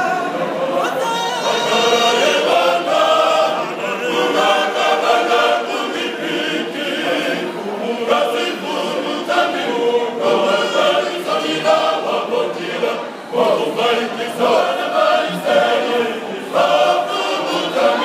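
Men's church choir singing together, many voices in chorus.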